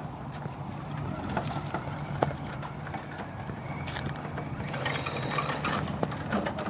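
CEN F450 radio-controlled truck with a brushless motor on a 2S battery, driving over a wet dirt path: a steady low whir of motor and gears with scattered sharp clicks, growing brighter for a moment about five seconds in.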